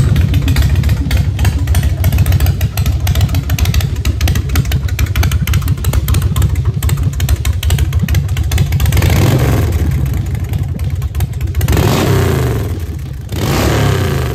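Harley-Davidson Dyna's V-twin engine running loud through open stainless-steel slash-cut shotgun drag pipes, with an uneven, pulsing idle. It is revved three times in the last few seconds.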